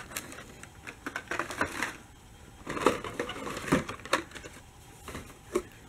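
Hot Wheels cars in plastic blister packs on cardboard cards being handled and shuffled: irregular plastic crackling and clacking in several short clusters.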